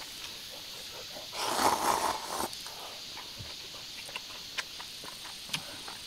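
A person eating noodle soup: one loud slurp lasting about a second, starting about a second and a half in, then small clicks of chewing and utensils.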